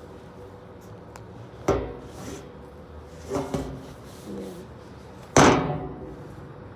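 Two sharp thuds about three and a half seconds apart, the second the louder, with softer handling scuffs between them.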